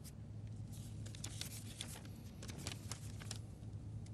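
Paper tissue crinkling and rustling close to the podium microphones, a flurry of short crackles for a couple of seconds, over a steady low hum.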